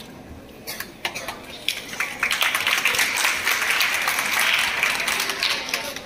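Applause from a group of schoolchildren: scattered claps about a second in, swelling into steady clapping, then thinning out near the end.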